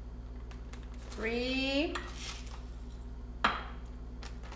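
Rock salt being spooned into a plastic zip-top bag of ice cubes, with one sharp click of the plastic spoon about three and a half seconds in. A short rising hum of a voice comes about a second in, over a steady low electrical hum.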